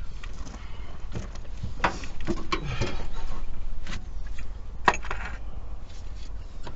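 Hands and hand tools working in an engine bay: scattered clicks, knocks and rustling, with one sharp click about five seconds in.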